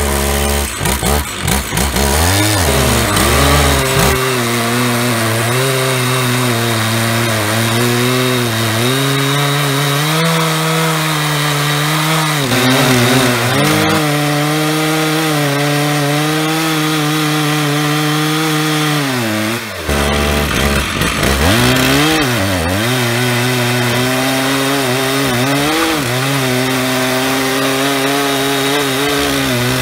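Stihl 066 and Stihl 088 chainsaws running at full throttle on a double-ended Alaskan mill, ripping an oak log through an 87-inch bar. The engine pitch keeps sagging and recovering, with a deep dip a couple of seconds in and a sharp drop about twenty seconds in, as the chain bogs down when the mill surges around bumps.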